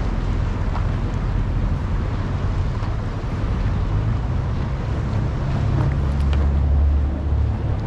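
Boat engines running, with wind noise on the microphone; a deep low rumble swells about six seconds in and eases off before the end.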